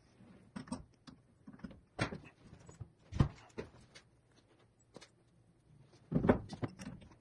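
Metal knocks and clunks of a lathe chuck change: the three-jaw chuck comes off and a heavy four-jaw chuck is fitted onto the spindle nose. Scattered clicks, with a sharp knock about three seconds in and a cluster of heavier clunks about six seconds in as the four-jaw goes on.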